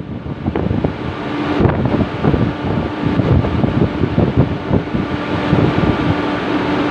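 Ship's deck crane hoisting a load, its motor running with a steady hum that sets in about a second and a half in, over wind buffeting the microphone and scattered low knocks.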